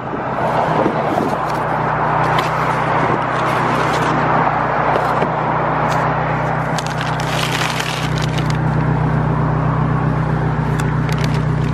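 A motor running steadily, a low hum under a broad rush, with crinkling and crackling of plastic wrap and cardboard as a boxed clutch kit is handled.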